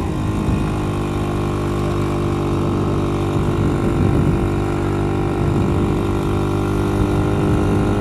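Vintage Monark M400 motorcycle engine running at a steady cruising pace, its note holding level with no revving up or down.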